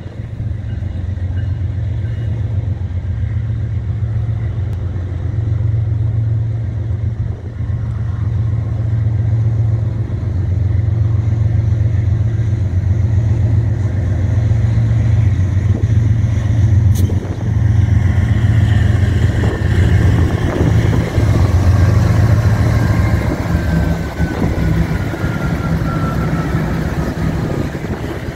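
Diesel engines of two CN freight locomotives running with a steady low rumble as the train approaches, growing louder over the second half as the locomotives come alongside, with rolling train noise near the end.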